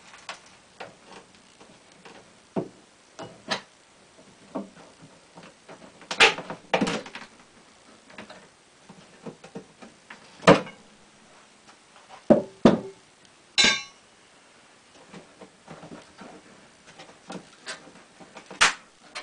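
Double-sided adhesive tape crackling and popping as it pulls loose while pry bars lever a pinball machine's metal side rail away from the wooden cabinet. It comes as a dozen or so irregular sharp pops and snaps, with a short crackling tear about two-thirds of the way through.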